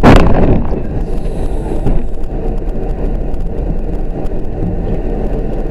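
A loud bang of a car collision, followed by a short ringing decay. Steady road and engine noise from the moving car follows.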